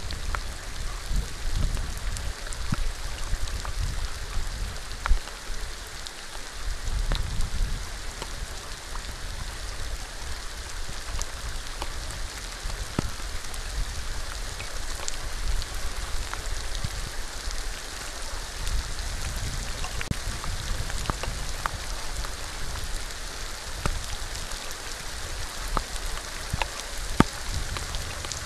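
Steady rain falling onto a wet surface, with scattered sharp ticks of individual drops striking. A low rumble swells and fades underneath.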